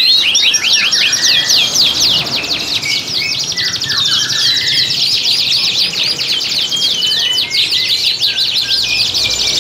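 Domestic canary song: a loud, continuous trill of rapid, repeated downward-sweeping notes, with a few lower chirps mixed in about four seconds in. This is the breeding-condition song of male canaries.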